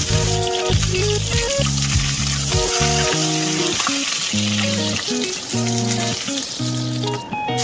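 Chicken quarters sizzling steadily as they sear skin-down in hot oil in a non-stick wok over high heat, over background music. The sizzle cuts out briefly near the end, then resumes.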